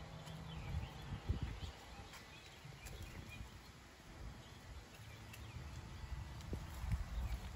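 Outdoor ambience: small birds chirping in short calls, mostly in the first half, over uneven low thumps of footsteps walking around.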